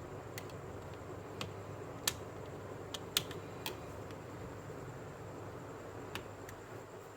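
Scattered light clicks and taps, eight or so, the sharpest about two and three seconds in, over a steady low hum.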